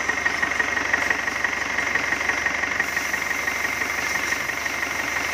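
Toyota forklift engine idling steadily with a quick, even ticking, running again after a head gasket replacement.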